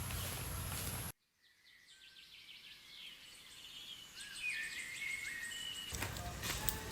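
Steady outdoor noise with a low rumble that cuts off abruptly about a second in, leaving a quiet stretch where birds chirp. The rumbling noise comes back near the end.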